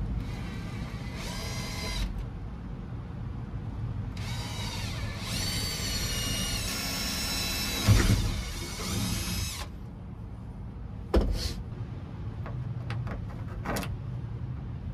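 Cordless drill whining as it drills into the metal window frame of a truck topper: a short run near the start, then a longer run of about five seconds with the pitch shifting under load. A loud knock comes near the end of the long run, and a few brief clicks follow later.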